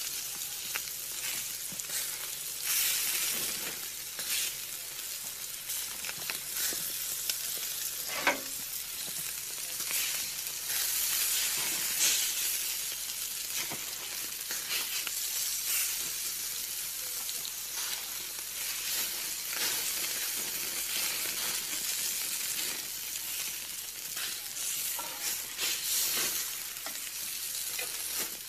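Burger patties sizzling on a hot grill grate: a steady hiss with fat crackling and popping irregularly. About eight seconds in there is one brief, louder falling whistle.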